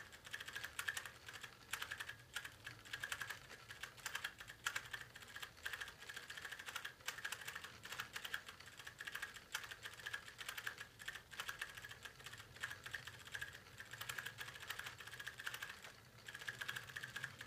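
Sony AIBO ERS-210 robot dog's leg and tail joint motors jittering, a fast, irregular clicking chatter that goes on without a break. The repairer puts the jitter down to dirty potentiometers in the joints that need a clean.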